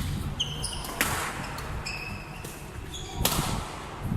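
Racket-sport rally on an indoor court: two sharp racket hits about two seconds apart, with short, high shoe squeaks on the floor between them.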